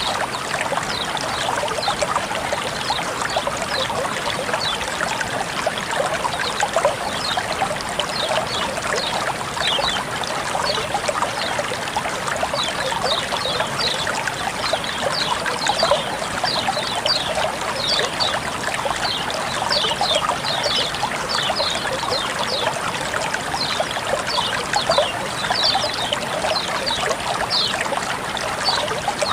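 Water flowing and trickling steadily, a continuous splashing rush with many quick high bubbling or dripping notes scattered through it.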